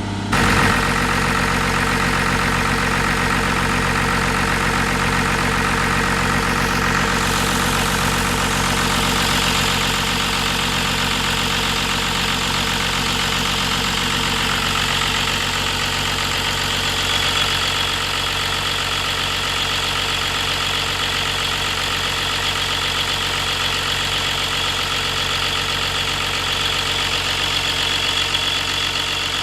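The diesel engine of a 1990 Case Poclain 888 CK crawler excavator running steadily. A high, steady whine joins about ten seconds in.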